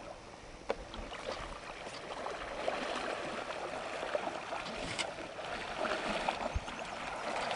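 River water rushing and lapping around a drift boat, with a few light knocks. It gets louder about two and a half seconds in.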